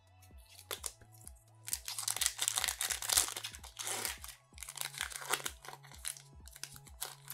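Foil wrapper of a Pokémon card booster pack crinkling and tearing open, in a long burst about two seconds in and a shorter one about five seconds in.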